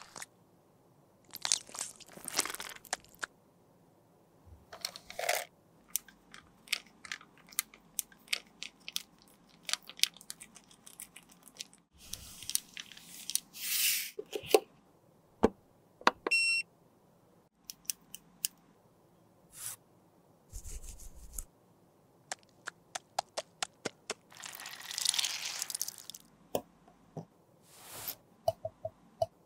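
Close-miked ASMR sounds of cosmetics being handled: a string of sharp taps and clicks on plastic and glass containers, with a few longer scraping and crinkling passages as product is worked on a silicone mat. A brief high tone sounds about halfway through.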